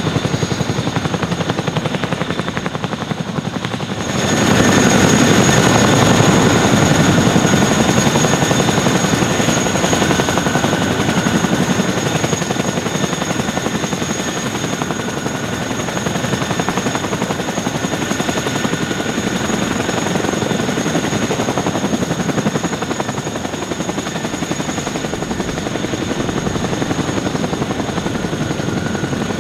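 Boeing CH-47F Chinook tandem-rotor helicopters running with rotors turning: a steady rotor chop with a high whine from the twin turboshaft engines. It gets markedly louder about four seconds in.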